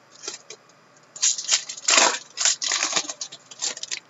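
Hands crinkling and rustling trading-card pack wrappers and cards in a quick run of crackles starting about a second in, loudest around the middle.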